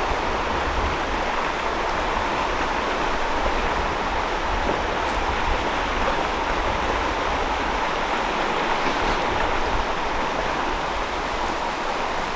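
Steady rush of flowing stream water, with a low rumble underneath.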